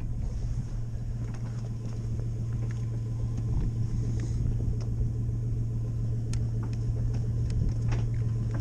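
Boat motor running steadily with a low, even drone.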